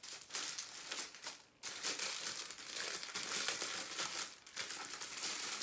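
Clear plastic packaging bag crinkling in the hands as it is handled, with a brief pause about one and a half seconds in.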